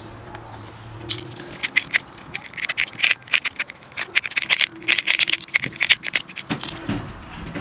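A utility knife blade scraping and shaving plastic from the edge of a hole in a white plastic cap: a quick, uneven run of short rasping strokes, starting about a second in and stopping near the end.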